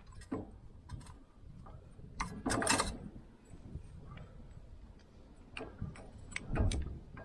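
Scattered metallic clicks and knocks of hand tools and brake parts being handled during a rear brake pad change, with one louder half-second of noisy rasping about two and a half seconds in.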